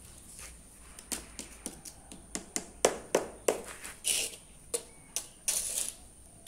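A run of sharp, irregular clicks and taps, with two short hissing bursts, one about four seconds in and one near the end.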